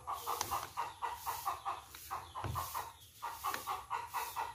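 A chicken clucking in a quick, steady run of short notes, several a second.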